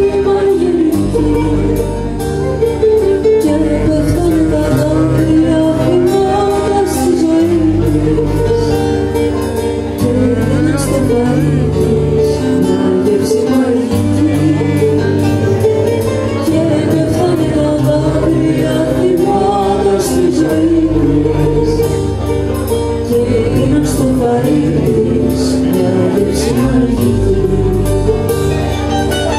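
Live band playing a Greek folk-rock song: a woman singing lead over bass guitar, drum kit and acoustic guitar, with a steady beat.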